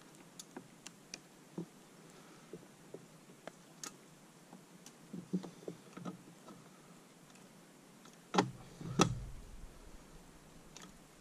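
Light plastic clicks and knocks of fishing tackle being handled in a bait boat's hoppers as it is loaded, with two louder knocks about eight and nine seconds in.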